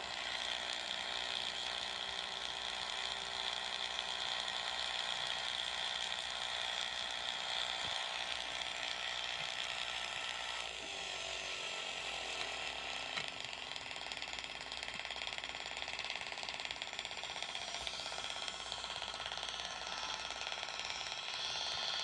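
Steady, rapid crackling buzz of electric arcs, dense and unbroken, with a slight dip in level about halfway through.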